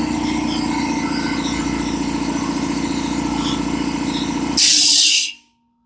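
Air compressor pump and motor running steadily as it builds tank pressure, then shutting off at the pressure switch about four and a half seconds in, with a short loud hiss as the unloader valve vents. It cuts out close to 140 psi.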